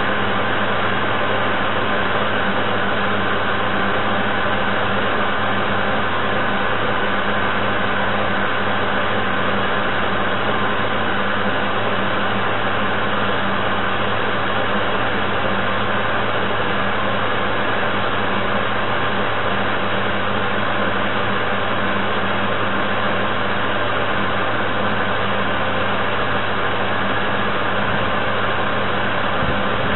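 Model paddle tug's onboard drive running steadily, heard from the bow where the camera rides: an unbroken mechanical whirring hum with steady low tones and no change in speed.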